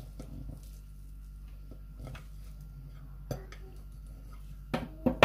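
A knife cutting through a baked bread loaf's crust on a plate, with faint scraping and light taps. Near the end the blade strikes the plate in a few sharp, loud clinks.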